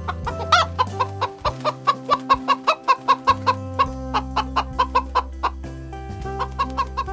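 Chicken clucking in a fast run of short clucks, about five a second, pausing briefly and resuming near the end, over steady background music.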